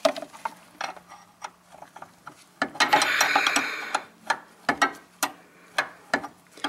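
A 14 mm wrench clicking and knocking on the brake line nuts of a brake master cylinder as they are tightened: a string of irregular sharp metallic clicks, with a brief rustling hiss about three seconds in.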